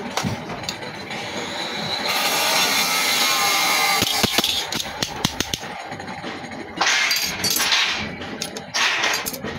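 Metalworking in a workshop: sharp metal clanks and taps throughout, with a steady hiss from about two to four seconds in and shorter bursts of hissing near the end.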